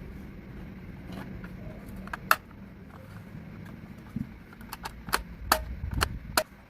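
A low rumble in the background with sharp clicks or taps over it: a single loud click about two seconds in, then a quick run of clicks near the end.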